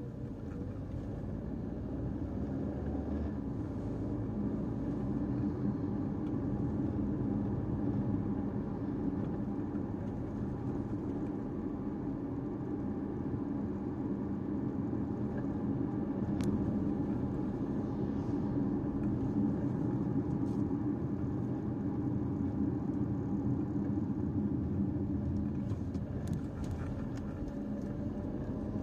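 Caoa Chery Tiggo 5x driving, a steady low rumble of engine and tyre noise that builds slightly over the first few seconds and then holds even.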